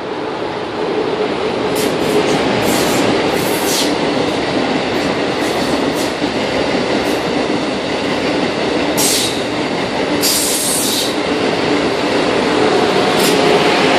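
Amtrak Acela Express electric trainset running past close by: a steady rush of wheels on rail, with several short, high hissing squeals from the wheels along the way.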